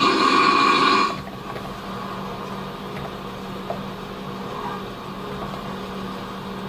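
Heavy snore, one harsh, rasping snore lasting about a second, then a pause of about five seconds with only a low hum, then the next snore starting near the end. It sounds like air forced through an airway that is almost completely blocked, which the consultant takes for obstructive sleep apnea.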